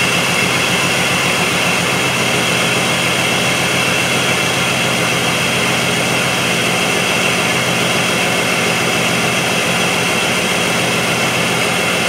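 2005 Jeep Liberty's 3.7-litre V6 idling steadily with misfires on cylinders 4 and 6, which the technician traces to shorted secondary windings in those ignition coils.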